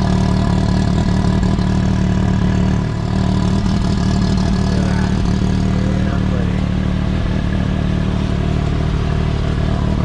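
Can-Am Maverick X3's turbocharged three-cylinder engine idling steadily through its stock exhaust.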